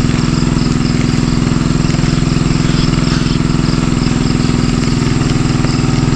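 A small engine running at a steady speed with an even, rapid beat, not revving.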